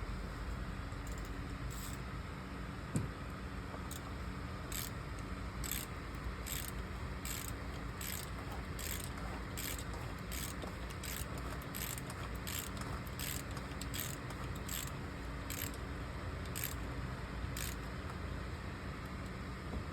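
Hand ratchet wrench clicking in short back-strokes, about one and a half a second, as the oil filter housing cap is turned down. A single knock about three seconds in.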